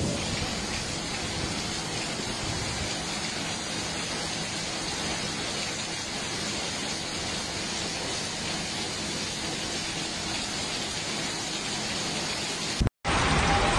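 Heavy rain falling, a steady hiss, broken by a short dropout near the end.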